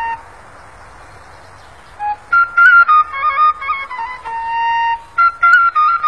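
Background music: a high solo melody on a flute-like wind instrument, played in short stepping notes. It stops at the start, leaving only a faint hiss, and comes back in about two seconds later.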